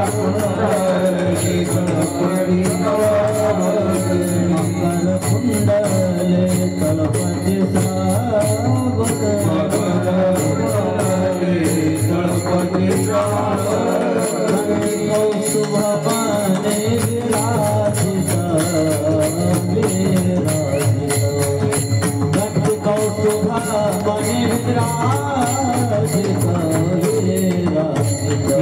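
Marathi devotional kirtan music: a panchpadi sung by a male voice over pitched accompaniment, with a quick, steady beat of small hand cymbals.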